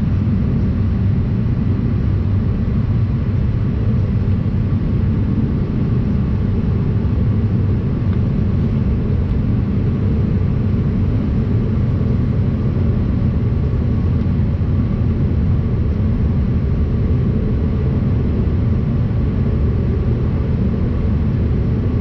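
Steady cabin noise inside a Bombardier CRJ-200 regional jet climbing after takeoff. A loud, even rumble of airflow and the rear-mounted turbofan engines, with a faint steady whine above it.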